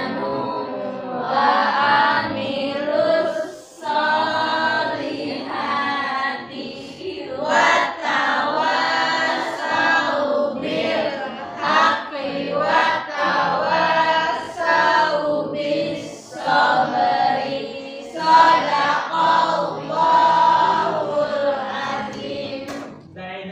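A class of schoolchildren chanting a closing prayer together in unison, many voices on a sing-song melody with held notes.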